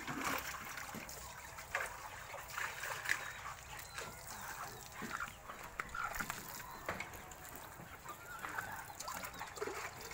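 Chickens clucking, with water splashing in a bucket near the start.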